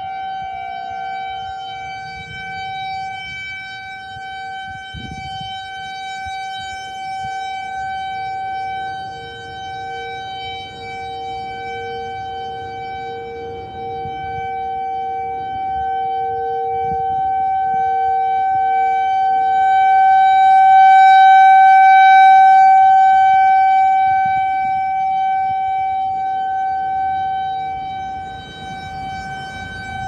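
Whelen WPS 4004 electronic outdoor warning siren sounding a steady, unbroken tone during a test. It swells loudest about two-thirds of the way through and then fades again as the rotating speaker head sweeps toward and away.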